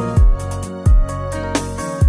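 Instrumental music: a deep programmed kick drum with a dropping boom about once a second, under sustained keyboard chords, with a sharper drum hit near the end.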